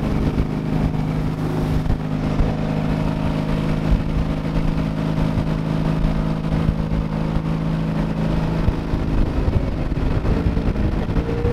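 Ford 302 small-block V8 in a vintage ski boat running under way with open exhaust at the waterline. The engine note holds steady, then shifts and begins to rise near the end.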